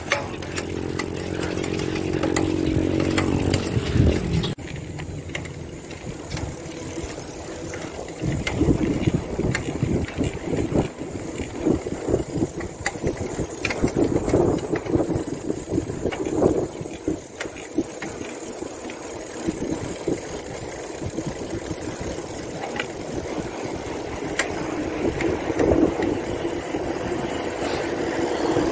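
A steady engine hum for the first four seconds or so, cut off abruptly. After it comes gusty wind rumble on the microphone with road noise from a moving bicycle.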